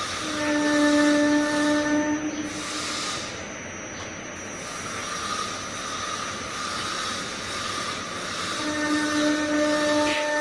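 Roti making machine's baking section running with a steady hiss, joined twice by a held tone lasting a couple of seconds, once near the start and again near the end.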